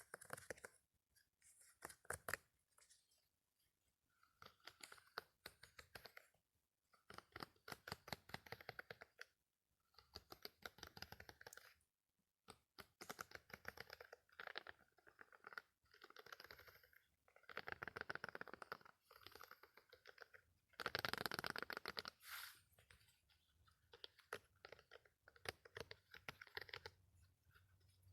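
Crunchy, crackling ASMR trigger sounds from an object being handled, coming in repeated bursts of a second or two with short pauses between them.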